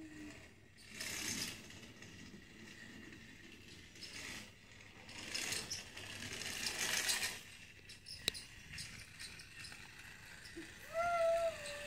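Small mechanism rattling in several bursts, with a sharp click about eight seconds in and a short, bending pitched sound near the end.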